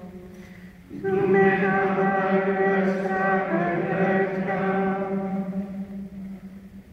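Benedictine monks chanting together in unison, largely on one reciting tone. A new phrase begins about a second in after a short pause.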